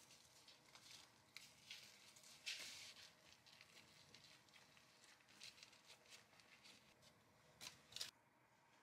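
Faint rustling and soft crackles of a flour tortilla wrap being rolled up by hand around lettuce and filling on a wooden board, with a brief louder swish about two and a half seconds in.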